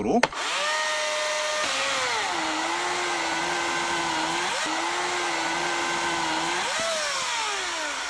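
Husqvarna 240i battery chainsaw cutting through a log under heavy load. Its motor whine drops in pitch about two seconds in and holds low as it takes the load, while it keeps cutting. Near the end the pitch jumps up briefly as the chain comes free of the wood, then falls away as the motor winds down.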